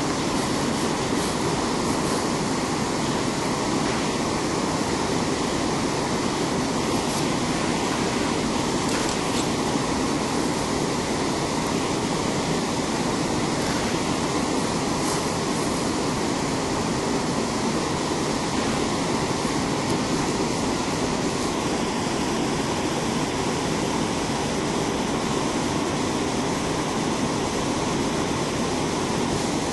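Steady rushing of fast river water tumbling over rocks in whitewater rapids.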